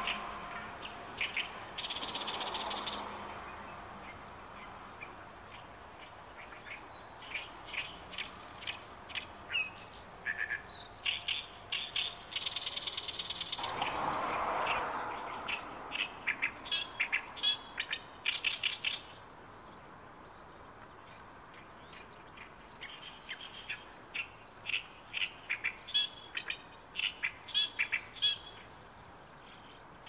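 Oriental reed warbler singing its territorial song: rapid chattering phrases of short repeated notes, in two long bouts with a pause of a few seconds between them.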